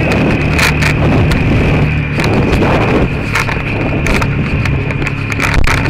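Side-by-side UTV engine running steadily at road speed, with wind noise and frequent sharp clicks and rattles throughout.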